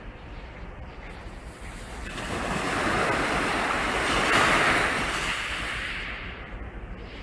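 Small waves breaking and washing up a fine shingle beach: the surf swells about two seconds in, is loudest around the middle, then fades away.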